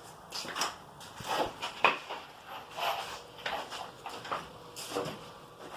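Wooden table leg and plywood pieces being handled and set in place: a series of irregular knocks, clunks and scrapes, about one or two a second.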